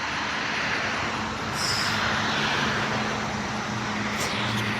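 Road traffic passing, with a steady low engine hum underneath and a short hiss about one and a half seconds in.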